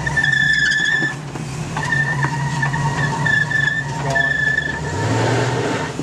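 First-generation Ford Bronco crawling over a trail obstacle: its engine runs at low revs under a string of high-pitched squeals, each under a second long, as it creeps forward. About five seconds in the engine note swells briefly.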